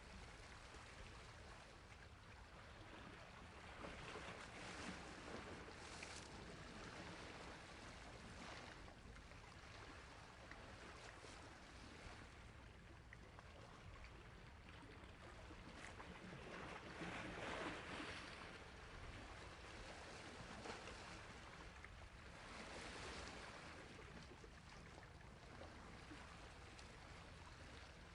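Faint sea waves washing onto a shore, swelling and ebbing every several seconds, the biggest wash about two thirds of the way through.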